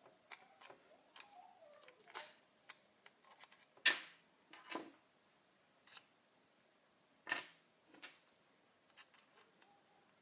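Faint, scattered clicks and knocks, irregular and sudden, the loudest about four seconds and seven seconds in.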